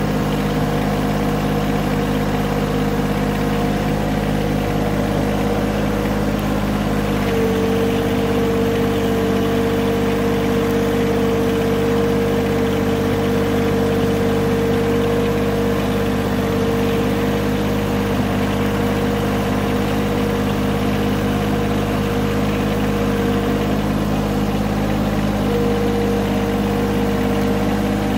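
John Deere tractor's engine running steadily, heard close from the driver's seat, as the front loader bucket pushes snow. A steady whine sits over the engine and grows louder about seven seconds in.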